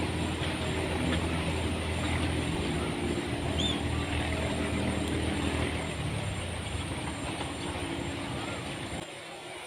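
Strong wind blowing, heard as a steady low rumble on the microphone that eases off near the end.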